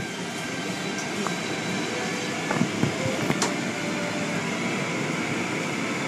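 Automatic car wash heard from inside the car: a steady rushing of water spray and wash strips scrubbing against the window and body. A few knocks and slaps come about halfway through.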